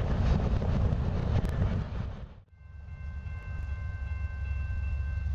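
Wind rumbling on the microphone, which cuts off abruptly about two and a half seconds in. Then the horn of an approaching Amtrak P42DC locomotive sounds a faint, steady chord of several notes in the distance over a low rumble.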